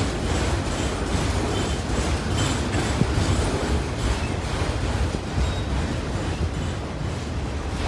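CSX autorack freight cars rolling past on steel wheels: a steady heavy rumble with wheel clicks over the rail and a sharper clank about three seconds in.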